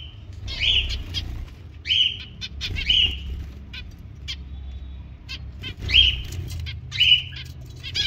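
Finches calling: short high calls repeated about once a second, with quicker faint ticks between them and a steady low rumble underneath.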